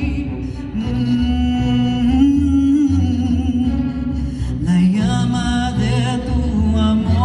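Live music: a singer holding long notes over a string ensemble, with a bass line pulsing underneath.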